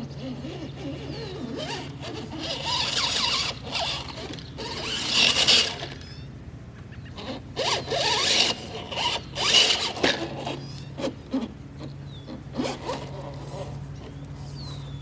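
Axial '55 Ford F100 scale RC crawler's electric motor and gears whirring and grinding in bursts as it crawls. Two long bursts come early and midway, then several short spurts.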